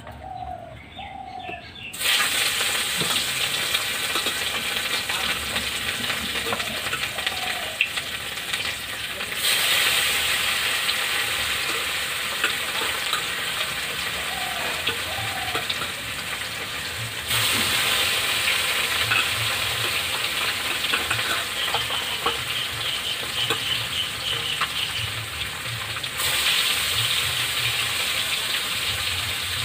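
Fish frying in hot oil in a kadai: a loud, steady sizzle that starts suddenly about two seconds in, jumping in level a few times.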